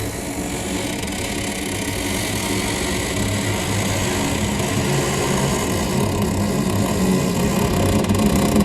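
Door hinge creaking in one long, drawn-out groan, processed with heavy, creepy reverb. It grows slowly louder.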